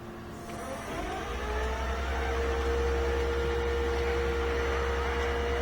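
Flatbed tow truck's hydraulic drive coming on: a whine rises over about a second and then holds steady over a low engine drone, as the truck runs its hydraulics to load the vehicle.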